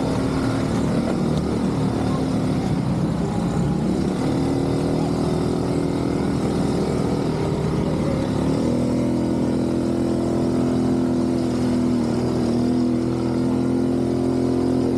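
ATV engine running steadily, its note shifting to a new pitch about four seconds in and again about eight and a half seconds in.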